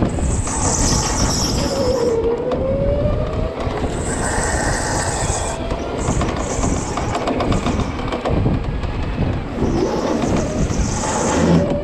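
OTL Storm electric go-kart driven hard on a smooth indoor track: the motor whine dips and rises with speed, and the tyres squeal in three spells through the corners over a steady chassis rattle and rumble.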